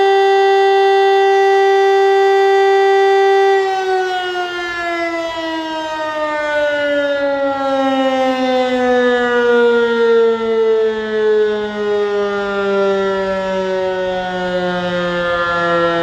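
DS977 electromechanical civil-defence siren sounding the steady tone of a monthly test, then switched off about three and a half seconds in and winding down, its pitch falling slowly and smoothly as the rotor coasts to a stop.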